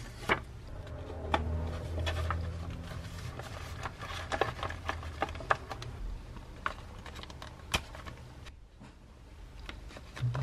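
Paper envelope being handled: rustling, with many scattered short clicks and taps as the flap is pressed shut and postage stamps are stuck on.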